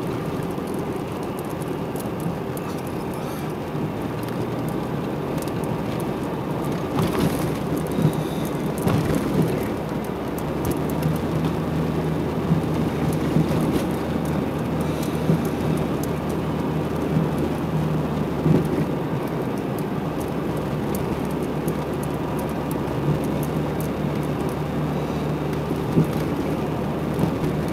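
Car driving slowly, heard from inside the cabin: a steady rumble of engine and tyres on pavement with a low hum and a few light knocks.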